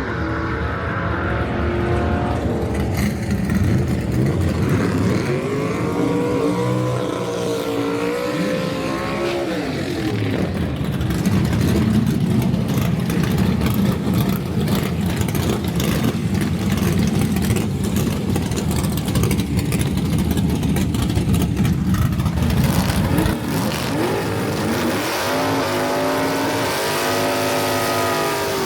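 Drag race cars' engines revving and accelerating hard, their pitch climbing and falling. A long stretch of loud, rough engine noise comes in the middle.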